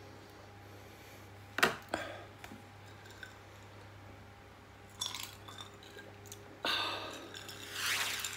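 Glassware and tableware handled on a table: a sharp clink about one and a half seconds in and a lighter knock just after, as a glass is picked up for a drink. Later come a few breathy sounds while the glass is drunk from.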